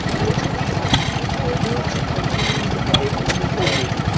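An old single-cylinder horizontal stationary engine with a large flywheel, running steadily: a fast low pulsing, with a sharp click about every second or two.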